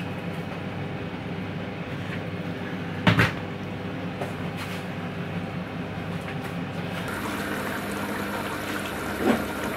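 Steady kitchen background noise with a single knock about three seconds in. From about seven seconds in, a pot of stew simmering on a gas hob, with a steady hiss.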